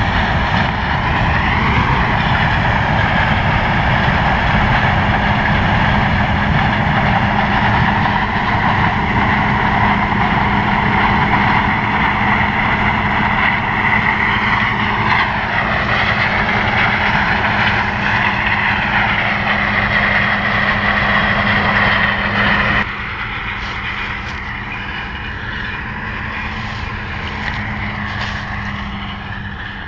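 Combine harvester running steadily, a loud drone with a low hum underneath. About three quarters of the way in, it abruptly drops in level and turns duller.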